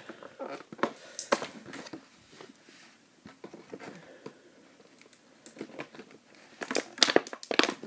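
Toy packaging being handled: plastic and cardboard crinkling and rustling with sharp clicks while a small toy part is worked out of its box, busiest and loudest near the end.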